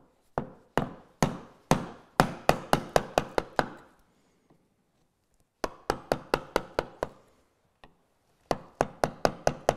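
A mallet striking the handle of a wide bevel-edged chisel, driving it down into a wooden block to chop out waste. Sharp blows come in three runs of quick strokes, about four a second, with short pauses between the runs.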